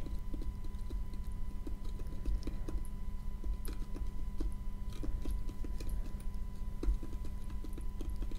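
Close-miked ASMR tapping: soft, irregular clicks and taps, a few each second, over a steady electrical hum from a failing Rode microphone.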